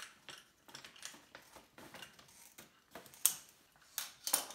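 Scissors snipping into a plastic cat-food bag: a series of sharp clicking snips, the loudest about three seconds in and two more near the end.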